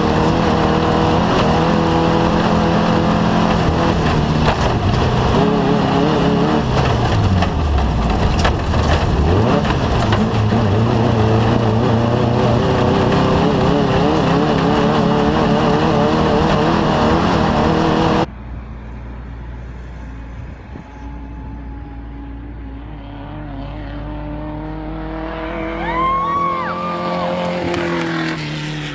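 Off-road race vehicle's engine running hard, its pitch wavering up and down with the throttle. About two-thirds of the way through the sound cuts abruptly to a quieter engine that swells and peaks near the end, its pitch arching up and back down like a vehicle passing.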